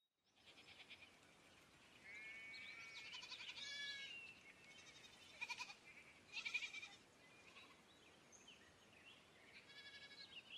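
Faint countryside ambience: a soft background hiss with scattered short, high animal calls and chirps, the loudest a little past the middle.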